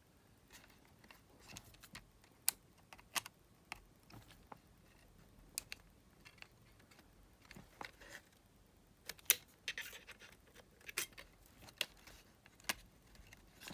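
Irregular small clicks and taps of plastic and metal parts of a Sony TCM-450 cassette recorder being handled and fitted together, with a screwdriver driving in the case screws. A few louder clicks come about nine and eleven seconds in.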